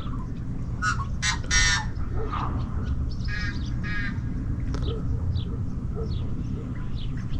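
Birds calling: a few short, rough calls in the first half, then a run of brief falling chirps about every half second, over a steady low rumble.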